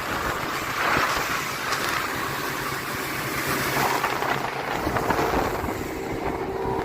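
Motorboat running at a cruising speed of about 30 mph, its engine noise mixed with hull-on-water and wind rush; a few steady engine tones come through from about five seconds in.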